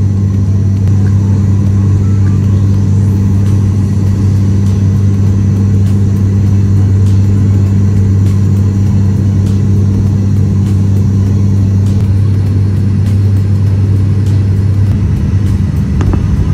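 Steady propeller and engine drone of a turboprop airliner heard inside the cabin during descent: a loud, even low hum with two deep tones that hold steady throughout.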